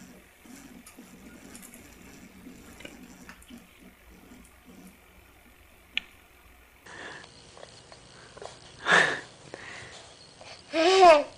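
A toddler's voice: two loud excited vocal outbursts about nine and eleven seconds in, the second rising and falling in pitch. Before them there are only faint low baby murmurs and a single sharp click about six seconds in.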